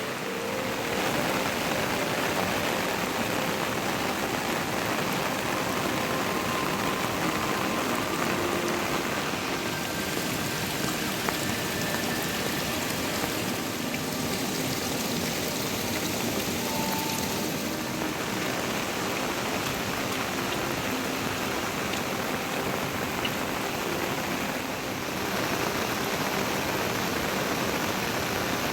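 Heavy monsoon rain falling steadily, an even dense hiss.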